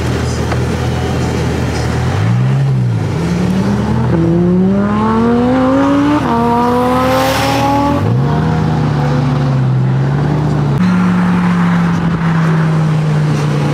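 Sports car engine under way: a short blip of revs, then it accelerates hard, with the revs climbing, dropping at a gear change about six seconds in and climbing again, before easing back to steady cruising.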